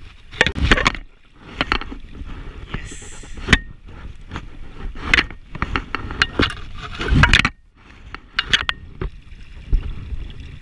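Fast, shallow river rushing over gravel and splashing right against the camera housing, with irregular loud slaps and a few knocks and scrapes.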